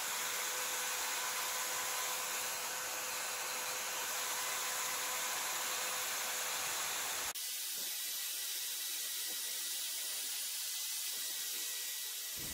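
Electric drill spinning a buffing wheel, a steady whirring hiss with a faint motor whine, as a clear plastic windshield is buffed against it to polish out yellowing. About seven seconds in the sound changes abruptly and turns thinner, then carries on steadily.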